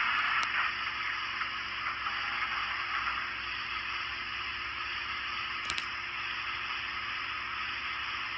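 Steady steam hiss from the speaker of a sound-equipped Broadway Limited Imports 4-6-2 Pacific model standing at idle, with a faint steady hum under it and one small click about two thirds of the way through.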